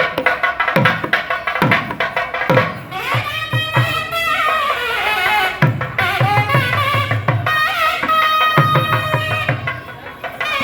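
Traditional South Indian music: rapid hand-drum strokes, joined about three seconds in by a wind-instrument melody that glides between notes. The drumming eases off briefly near the end.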